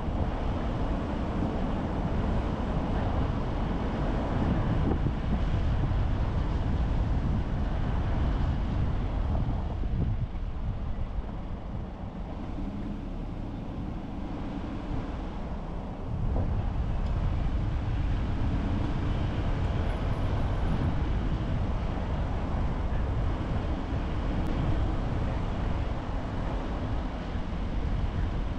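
A car driving: steady road and engine noise, heaviest in the low end. It grows quieter for several seconds near the middle, then picks up again.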